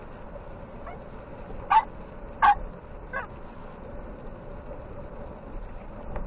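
Steady road and engine noise inside a moving car, broken between about one and three seconds in by four short, sharp sounds, the second and third much the loudest.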